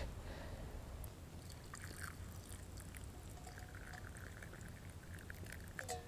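Hot water faintly trickling as it is poured from a stainless steel camp pot with no pour spout into a wooden kuksa.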